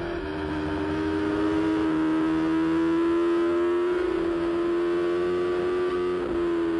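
MV Agusta racing motorcycle engine held at high revs: one steady note whose pitch shifts slightly a few times.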